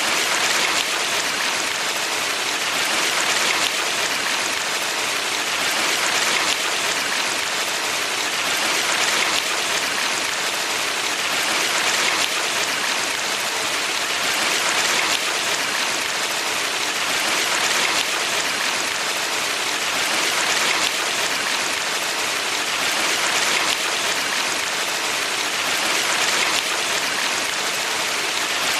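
Steady rushing of a valley stream, a dense hiss of water that swells gently and evenly about every three seconds.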